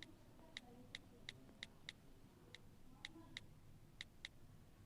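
Faint, light clicks at irregular intervals, about fifteen of them and several in quick pairs, over near silence.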